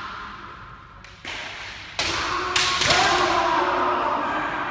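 Kendo sparring: long drawn-out kiai shouts, and a sharp crack of a bamboo shinai strike with a stamp on the floor about three seconds in, all echoing in a large hall.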